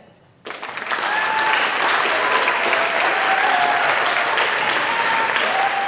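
Audience and cast applauding, with the clapping starting suddenly about half a second in and then holding steady.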